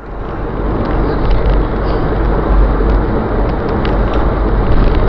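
Steady road noise in a moving car: a deep, even rumble of engine and tyres, recorded by a dash camera.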